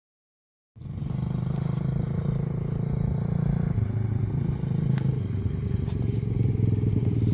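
Small dirt bike engine running as the bike rides, starting about a second in. Its pitch drops about four seconds in, then holds steady.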